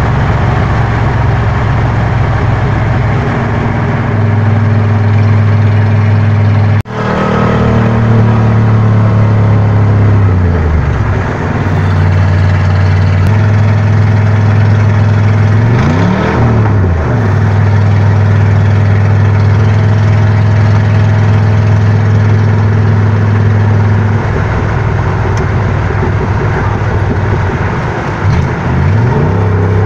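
1967 Dodge Coronet's straight-piped 318 V8 running at cruise, heard from inside the cabin: a loud, steady, deep exhaust note. It cuts out sharply for a moment near seven seconds, and its pitch dips and swings a few times.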